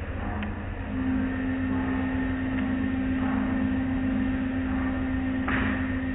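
Automatic car wash heard from inside the car: water spraying and cloth brush strips sweeping over the glass, over a steady low rumble. A steady machine hum comes in about a second in, and there is a short louder rush near the end.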